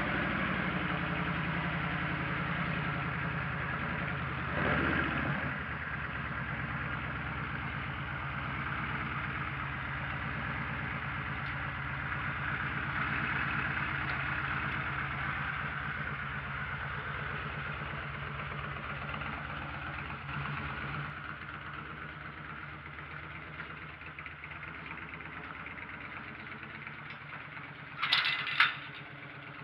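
Yamaha XVS1300A Midnight Star V-twin idling steadily through a Vance & Hines Pro Pipe 2-into-1 exhaust. The sound grows fainter in the second half. Near the end come a few sharp metallic clanks from a metal gate latch.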